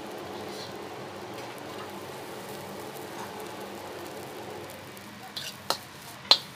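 Shrimp and fried rice sizzling in a hot wok, a steady hiss. Near the end come three sharp clanks of a steel ladle against the wok, each louder than the last.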